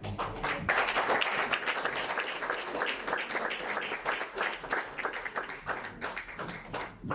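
Audience applauding: many people's hands clapping in a dense, uneven patter that swells about a second in and thins out near the end.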